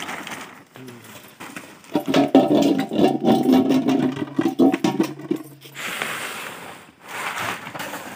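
Yellow plastic tarp rustling and crackling as red weaver ants are shaken off it into a steel bowl. A steady low hum with crackles over it runs for about four seconds in the middle and is the loudest part.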